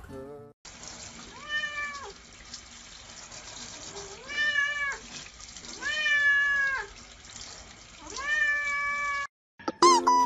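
A cat meowing four times, each meow drawn out for under a second and rising, holding, then falling in pitch.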